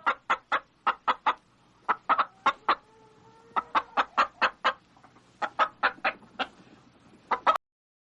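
Hen clucking: runs of short, quick clucks, about five a second, in groups separated by brief pauses. They stop suddenly near the end.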